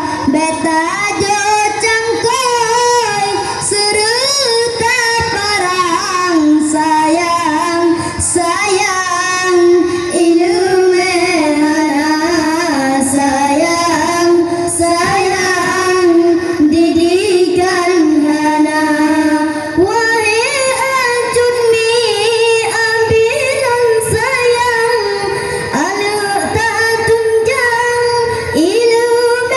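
Boys singing an Acehnese sholawat through handheld microphones and a loudspeaker. The melody winds and bends in pitch, with long held notes.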